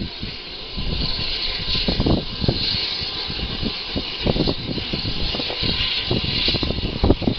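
Wind buffeting the microphone in irregular gusts of low rumble over a steady hiss.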